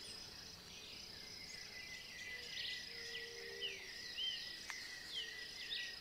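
Countryside ambience: a steady high-pitched insect trill with birds chirping over it, several short calls from about two seconds in.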